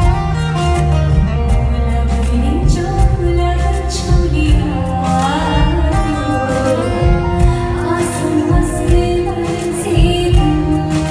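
Live Indian pop song: a woman sings into a microphone over a band with electric guitar, bass and hand drums, heard through the hall's PA.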